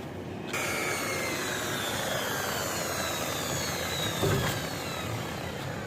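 Electric power tool running with a high whine that starts suddenly about half a second in and slowly falls in pitch, as when it is working metal.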